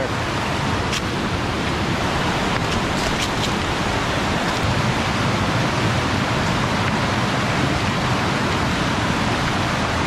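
Loud, steady rush of a waterfall cascading over rock, with a few faint clicks about one and three seconds in.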